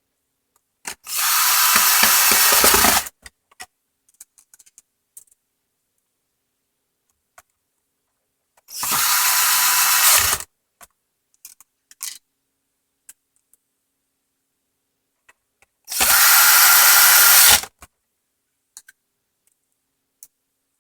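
Power screwdriver driving small screws into a Roomba's plastic chassis, three runs of about two seconds each, with small clicks from handling parts in between.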